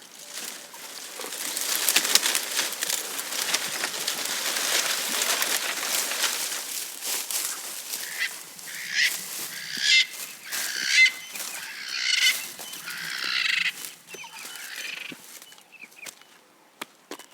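Giraffe tearing and chewing grass: dense crackling and rustling with many small clicks, followed from about halfway by a run of separate, louder rasping bursts that fade away near the end.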